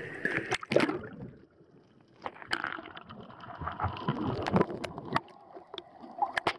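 Water sloshing and gurgling around a camera held at the sea surface, going under and coming back up, with many sharp irregular clicks and knocks and a short quieter spell about one and a half seconds in.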